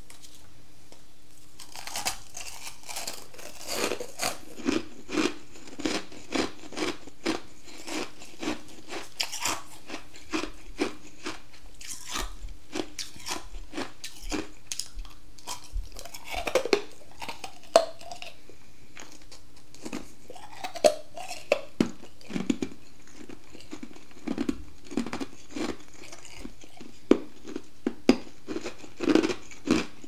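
Freezer frost being bitten and chewed close up: a rapid run of crisp crunches that starts about two seconds in, with several louder single bites in the second half.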